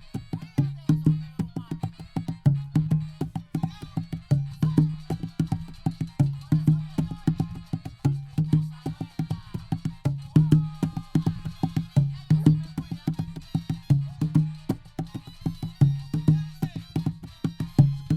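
African cedar laptop conga played by hand in a steady, fast rhythm: sharp strikes, several a second, each with a low ringing tone.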